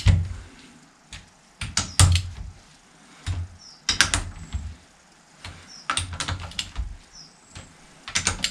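Torque wrench ratcheting and clicking in short bursts every second or two as the cylinder head nuts of a Fordson Major are pulled down to 30 foot-pounds.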